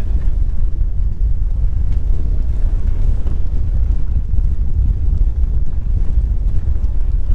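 Strong wind buffeting a GoPro's microphone, a loud, steady low rumble, aboard a sailboat heeled over in a fresh breeze.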